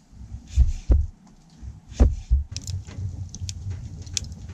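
Several dull, low thumps, then a low rapid rumbling scattered with light clicks from about halfway in.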